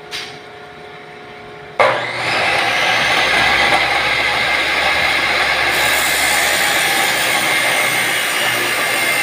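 Abrasive chop saw (cut-off saw) switched on about two seconds in and running loud and steady. From about six seconds in its wheel grinds into a steel jamb piece, adding a harsh hiss.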